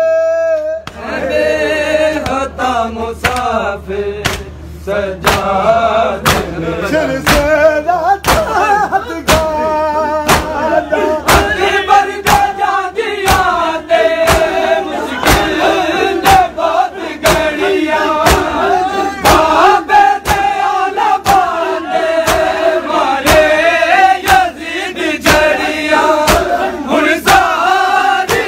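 Crowd of men chanting a noha in unison, loud and shouted, over a steady beat of matam: open hands slapping bare chests together, more than once a second.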